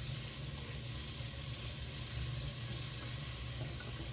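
Breaded chicken tenderloins deep-frying in oil, with a steady, even sizzle.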